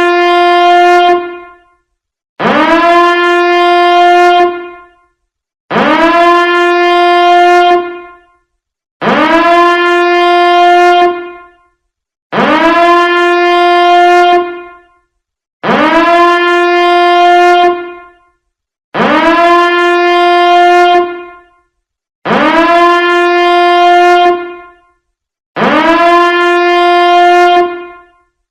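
Biohazard alarm sounding in repeated horn-like blasts, about one every three seconds. Each blast swoops up in pitch at the start, holds a single steady tone for about two seconds, then dies away.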